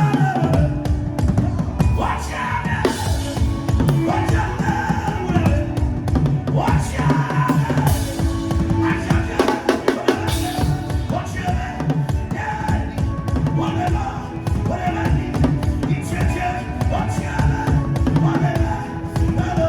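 Drum-led music: fast, dense drum strokes in a driving, steady rhythm over repeating low pitched notes.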